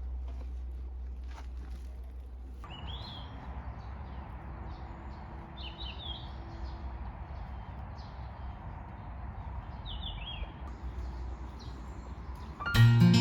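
Small birds chirping in short, quick calls a few times over a steady outdoor background hiss. Acoustic guitar music comes in near the end.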